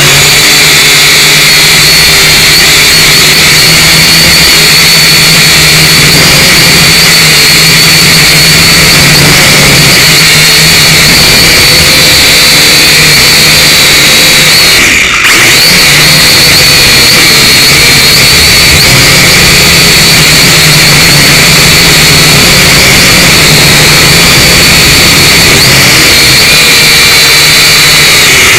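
Syma X5C quadcopter's small brushed motors and propellers whining steadily in flight, heard loud and close from the drone's onboard camera, with a brief dip in the sound about halfway through.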